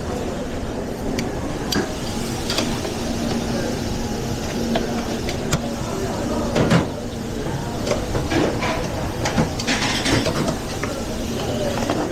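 Restaurant kitchen during service: a steady machine rumble under many scattered clinks and knocks of pans, plates and utensils, with faint background voices.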